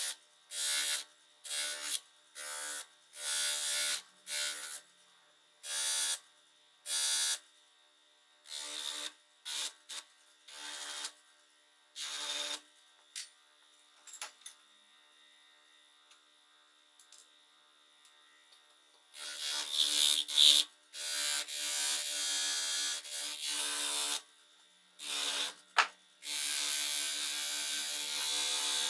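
A small electric motor tool, such as a cordless drill or rotary tool, triggered in many short bursts for the first dozen seconds. After a quiet stretch it runs for longer spells, nearly continuously from about 19 s on.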